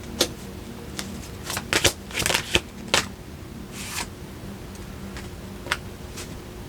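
Tarot cards being shuffled and handled: a run of short, irregular snaps and riffles, thickest in the first three seconds, then a few scattered flicks.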